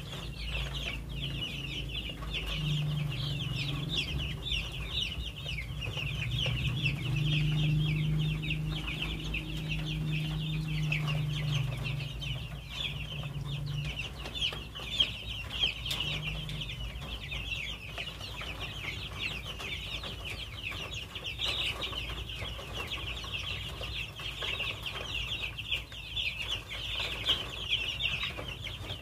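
A group of young chickens peeping continuously, many short high peeps overlapping, as they feed on black soldier fly maggots. A low hum runs underneath for the first half.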